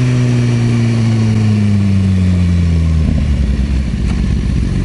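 Aprilia Tuono V4 1100 Factory's V4 engine running through its Arrow exhaust, held above idle with its note sinking slowly, then dropping back to a rougher, lower idle about three seconds in.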